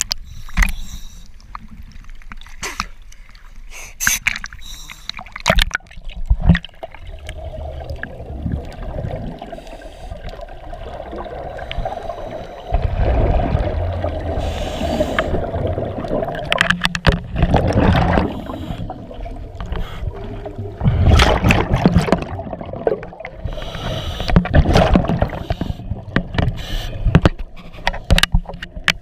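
Underwater scuba sound: the rush and gurgle of exhaled bubbles from a diver's regulator, swelling every three to four seconds with the breathing. Scattered knocks and clicks in the first several seconds.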